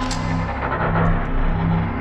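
Soundtrack music with held low notes that repeat in long steps under a dense, noisy upper layer.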